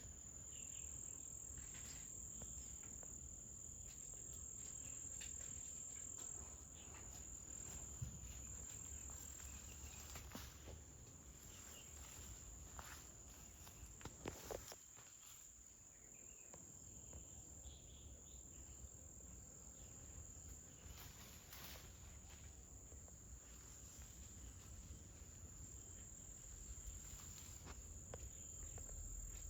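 Insects chirring in one steady, unbroken high-pitched tone, with a low background rumble and a few scattered faint clicks and rustles.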